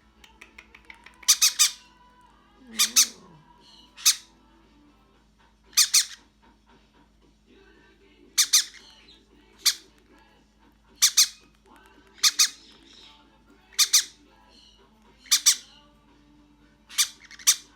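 Hand-reared pineapple conure chick giving short, harsh begging squawks, some in pairs, about every second and a half while being syringe-fed formula.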